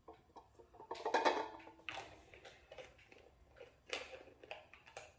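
Plastic vegetable oil bottle being handled and its cap twisted back on: scattered small plastic clicks and crackles, with a louder rustle about a second in.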